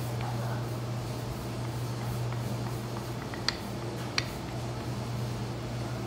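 Rolling pin working yeast dough on a floured granite counter, heard faintly over a steady low machine hum, with two sharp clicks a little past halfway.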